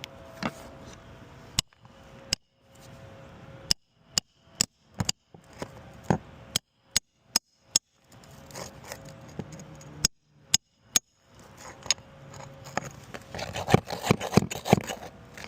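Asphalt roofing shingles and tools being handled and fitted: a string of sharp taps and clicks with scraping and rustling, growing denser and louder near the end. The sound drops out to silence several times.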